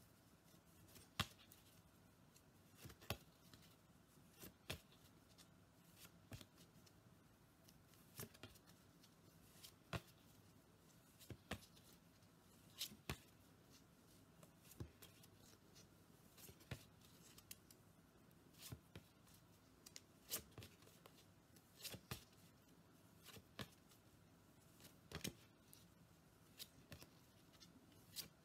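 Stiff paper flash cards being flicked one at a time from the front of a stack to the back: faint, sharp card clicks about every one and a half to two seconds, over quiet room tone.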